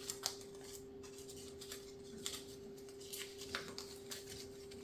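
Small packaging being handled: scattered soft crinkles and a few sharp clicks as jewelry is unwrapped, over a steady low hum.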